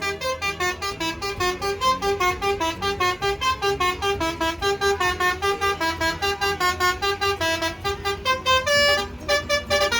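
Bus basuri horn playing a quick melody of short, stepping notes, with a low steady hum underneath.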